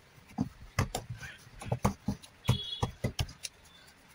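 Irregular knocks and taps, about a dozen, one with a brief metallic ring, as hands knead and shape dough balls on a metal plate.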